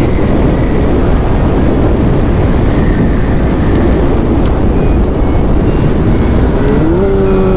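Steady rush of wind on the microphone over a Kawasaki ZX-25R's inline-four engine and tyres while the bike is ridden.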